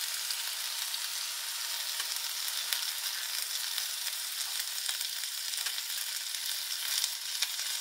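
Oyster-mushroom satay skewers coated in peanut sauce sizzling on a hot ridged grill plate: a steady hiss with small crackles as the sauce and juices fry.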